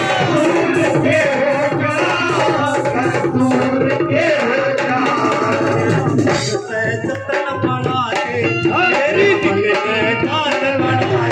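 A man singing a devotional song through a microphone, with hand drums of the tabla or dholak kind keeping a steady beat. The sound drops briefly about halfway through, then the singing and drumming carry on.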